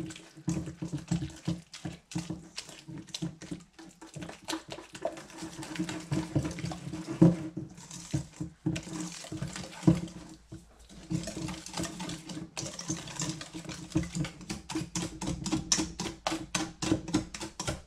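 Wire whisk beating thick pancake batter in a stainless steel mixing bowl: rapid clicking and scraping of the wires against the metal, with a low ring from the bowl. The strokes pause briefly a few times in the middle and quicken near the end.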